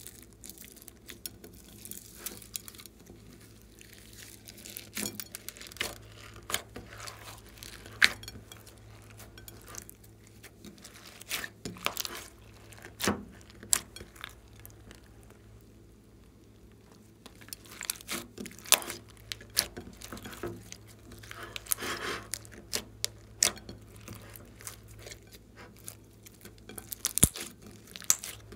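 Hands mixing and kneading white glossy slime packed with plastic beads, foam balls, sprinkles and glitter: irregular crackles, clicks and soft squelches, with occasional sharper clicks.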